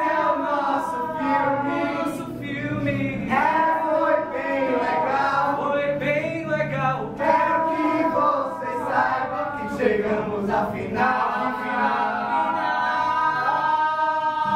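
A group of voices singing together without instruments, with several long held notes.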